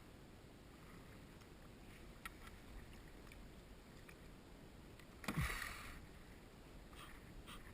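Faint water sounds with one louder splash about five seconds in.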